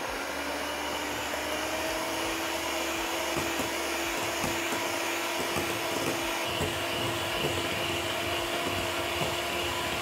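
Electric hand mixer running steadily at an even pitch, its twin wire beaters whipping chilled cream in a glass bowl toward soft peaks.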